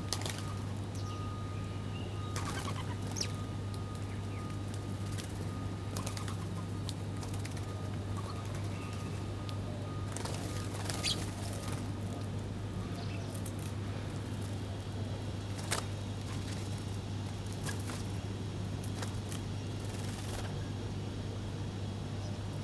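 Small birds feeding, with brief wing flutters and occasional short chirps over a steady low hum.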